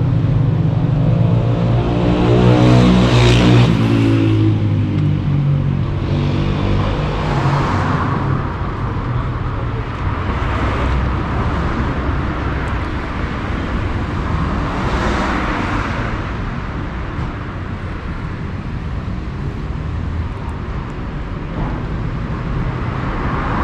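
Street traffic: a car engine runs loud and close, passing by about three seconds in. Then comes a steady traffic hum, with more cars going by every few seconds.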